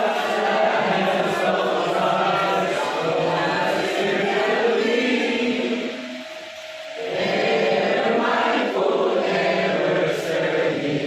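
A group of voices singing together in chorus, with a short break between phrases a little past halfway.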